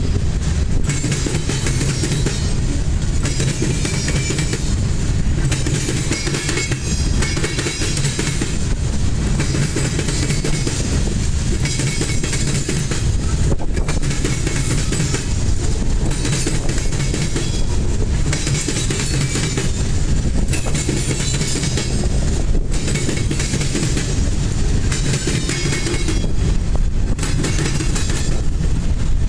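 Freight train cars, boxcars and covered hoppers, rolling steadily past, their wheels clattering over the rail joints and the diamond crossing.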